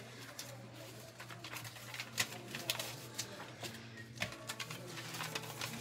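Scattered light clicks and knocks over a steady low hum in a large room. A few held musical tones begin near the end.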